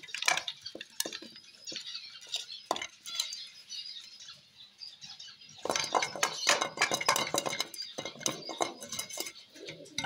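Clinking and knocking of dishes: a steel plate and a clay feeding bowl handled on a concrete floor. There is a run of sharp clicks that is densest from about six to eight seconds in.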